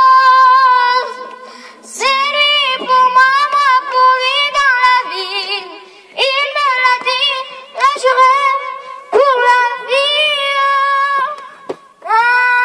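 A young girl singing long held notes with vibrato into a handheld microphone, in several phrases broken by short pauses, without clear words.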